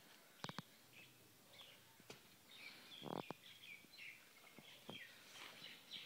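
Faint bird chirps, with a few footsteps crunching on dry dirt and gravel, the loudest about three seconds in.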